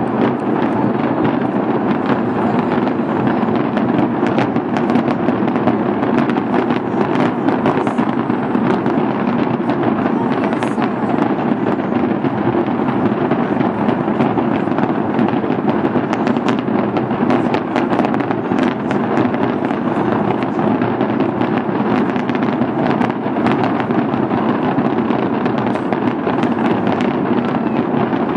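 Fireworks show fired from a skyscraper: a dense, unbroken barrage of bangs and crackling that keeps an even loudness throughout.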